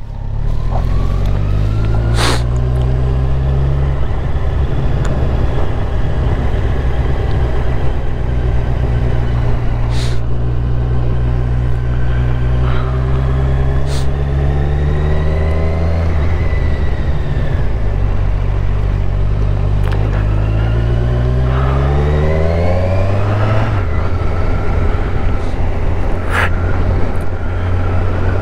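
Motorcycle engine under way: it speeds up, holds a steady cruise, eases off about halfway through, then accelerates again and settles. A few brief knocks sound over it.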